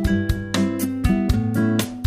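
Background music led by a plucked and strummed guitar with a regular beat.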